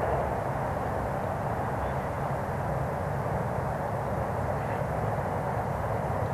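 Steady distant rumble of an E231-series electric train running across a steel truss railway bridge.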